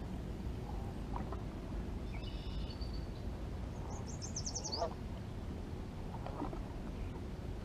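Birds calling over a steady low rumble: a few short calls, with a quick high trill about four seconds in.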